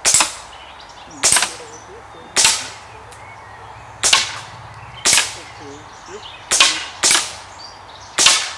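A string of eight gunshots, roughly one a second, with two pairs coming closer together, fired in a timed run at a row of knock-down flap targets. Each is a sharp crack with a short echo.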